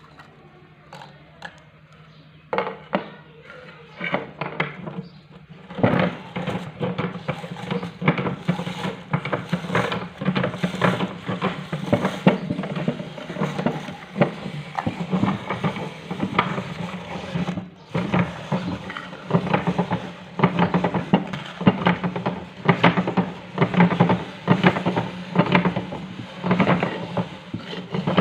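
Electric meat grinder motor humming steadily while TUC crackers crunch and crack as they go through it. The cracking is sparse at first and becomes dense, near-continuous crackling from about six seconds in.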